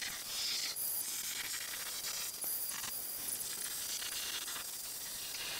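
Benchtop bandsaw cutting a curved profile in a wooden frame-saw arm: a steady hiss of the blade through the wood, swelling briefly a few times as the cut goes on.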